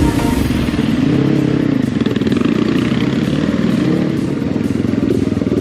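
Off-road enduro motorcycle engine running under load, its revs rising and falling.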